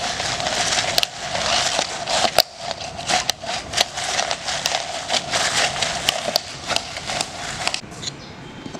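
Food sizzling and crackling in a cooking pot: a dense hiss full of sharp pops, which drops away about eight seconds in.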